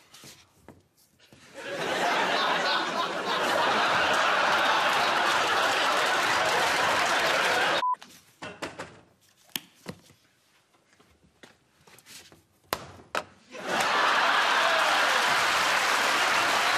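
Studio audience laughing and applauding, starting about a second and a half in and cutting off suddenly about halfway. After a quieter stretch with a few sharp knocks and clicks, the laughter and applause start again near the end.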